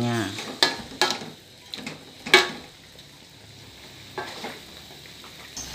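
Spatula scraping and knocking against a wok as chicken pieces are turned, several separate strokes with the loudest about two and a half seconds in, over a faint steady sizzle from the pan.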